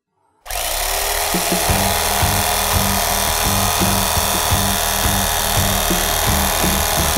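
A Cuisinart electric carving knife switches on about half a second in, its motor coming up to speed, then runs steadily as its reciprocating serrated blades saw through raw ribeye. Background music plays along with it.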